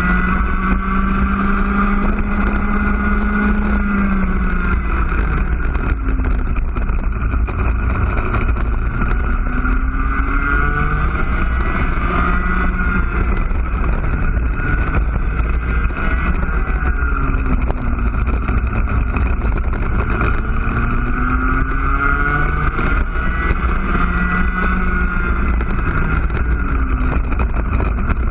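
IAME two-stroke cadet kart engine at full race speed, its pitch climbing slowly as it revs out along the straights and dropping each time the driver brakes for a corner, several times over, between roughly 6,800 and 11,800 rpm.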